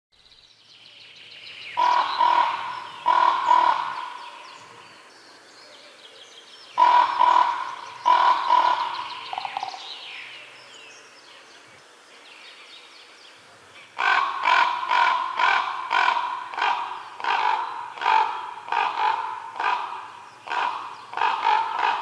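A crow cawing: two pairs of harsh caws, each pair a short double or triple call, then after a pause a long run of about a dozen caws in quick, even succession. Small birds chirp faintly in the background.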